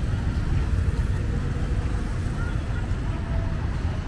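City street traffic: cars and motorbikes passing close by, a steady low rumble.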